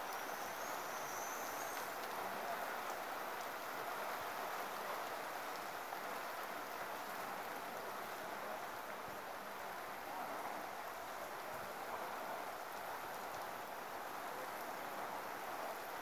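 Steady rain falling, an even hiss.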